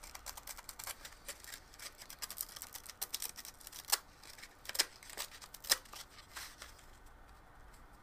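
Hand sanding and handling of a small 3D-printed ABS plastic part: irregular light clicks and short scratchy rubs of sandpaper against plastic, thinning out near the end.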